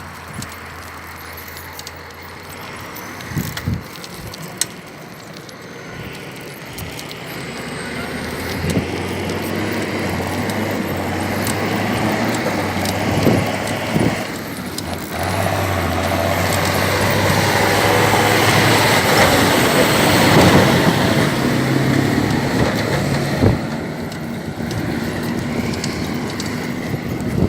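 John Deere 6630 tractor's six-cylinder diesel engine running, with a few sharp knocks in the first few seconds. It grows steadily louder from about a quarter of the way in to a peak past the middle, then eases off somewhat near the end.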